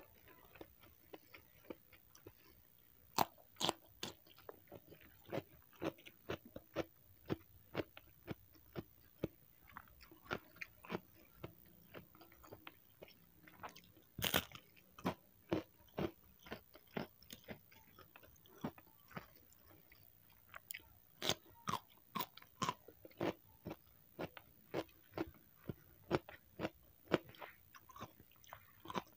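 Close-up crunching and chewing of crispy food, with sharp crunches about two a second starting about three seconds in. The loudest crack, about halfway through, is a bite of crispy peyek cracker.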